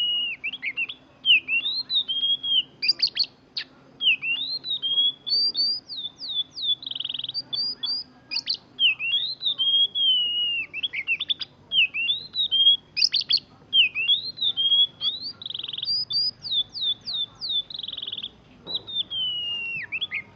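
Oriental magpie-robin (kacer) singing a continuous, varied song of whistled phrases that glide up and down, with a few short harsh buzzy notes mixed in.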